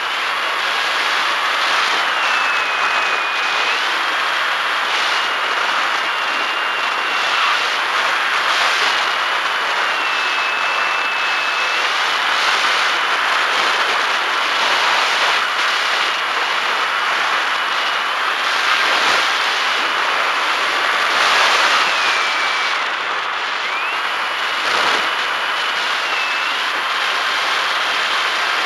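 Bixler 1.1 RC foam glider's electric motor and pusher propeller, heard from its onboard camera: a steady high whine that steps up and down in pitch several times as the throttle changes, over loud wind rush.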